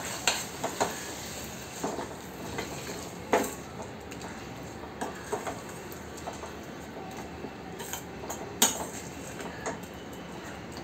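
A steel spoon scraping and clinking against a stainless steel kadai as thick mashed brinjal masala is stirred, in irregular strokes with a sharper knock about three seconds in and another near nine seconds.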